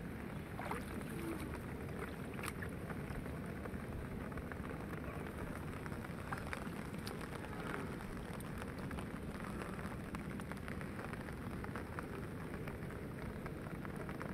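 Steady rain falling on a pond's water surface and the grass around it, with scattered individual drops ticking.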